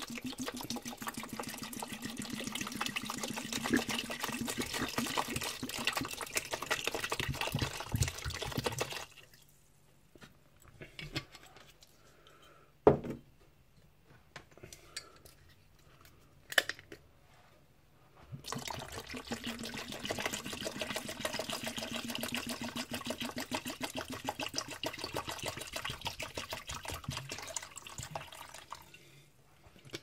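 Distilled malt vinegar poured from a bottle into a plastic tub: a steady splashing stream for about nine seconds, then a pause broken by two sharp knocks, then a second pour of about ten seconds.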